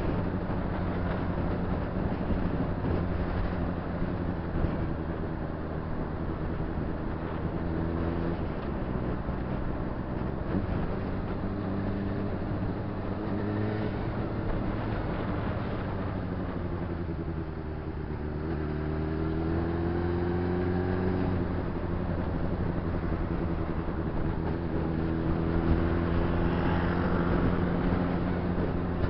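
Honda CBR600RR inline-four engine running as the motorcycle is ridden through traffic, with wind rush. The engine note sinks about two-thirds of the way through as the bike slows, then climbs again as it pulls away.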